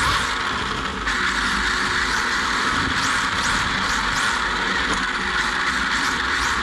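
Onboard sound of a 1/10-scale RC drift car under way: its 13.5-turn electric motor, cooling fan and gearbox whirring along with a steady hiss of tyres sliding on a smooth floor.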